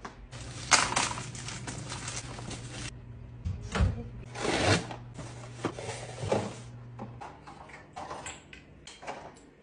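Household handling noises, scattered light knocks, clicks and rustles, over a steady low hum that stops about seven seconds in.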